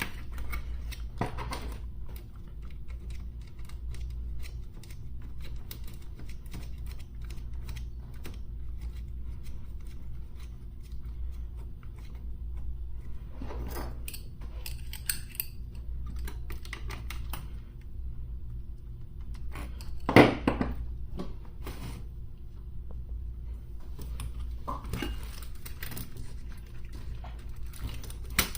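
Small clicks, taps and light clatter of hands and small tools working on a radio's plastic case and parts during reassembly, with one louder knock about twenty seconds in. A low steady hum runs underneath.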